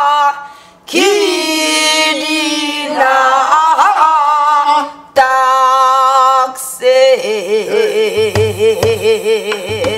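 A woman singing a Jindo ssitgimgut ritual song in the Namdo folk style: three long held lines on open vowels that bend and slide in pitch, the last one shaken with a wide vibrato. A few low strokes on a buk barrel drum come near the end.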